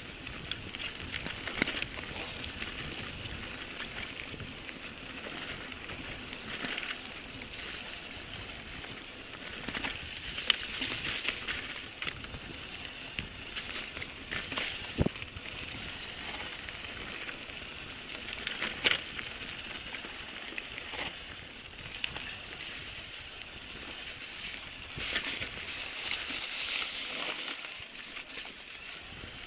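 Mountain bike rolling down a dry dirt forest trail: a steady rushing crackle of knobby tyres over dirt and leaf litter, with sharp knocks and rattles from the bike over bumps several times.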